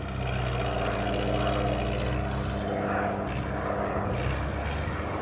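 Turboprop engine of a Zlin Z-137T Agro Turbo crop-dusting plane droning steadily as it flies past low.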